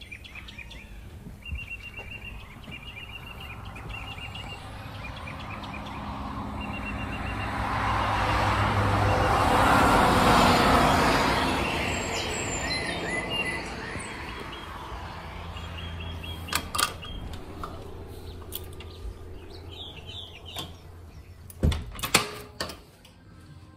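Songbirds singing before dawn in repeated chirping phrases, while a vehicle passes, its noise swelling to a peak about ten seconds in and fading away. A few sharp clicks near the end.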